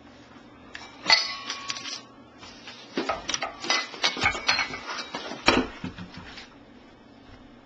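Metal lamp rattling and clinking, its parts clattering like a cough: a short burst about a second in, then a longer run of rattles.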